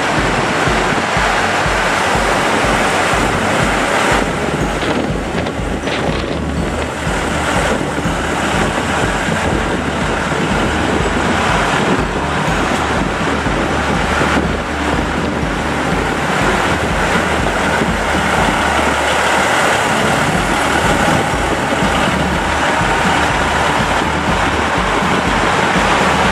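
KiHa 85 series diesel multiple unit passing slowly: its diesel engines run and its wheels roll over the rails in a steady, loud rumble with a low, regular beat underneath.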